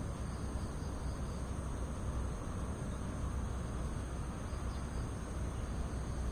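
Steady outdoor ambience: a continuous high-pitched insect trill over a low rumble, unchanging throughout.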